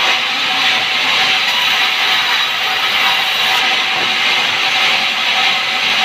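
Band sawmill running: the saw blade and its drive give a loud, steady high-pitched hiss with a faint underlying hum.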